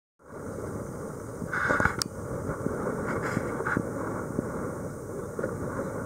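Small boat at sea: steady running noise with water slapping against the hull in many small knocks, a louder rush about a second and a half in and a sharp click just after.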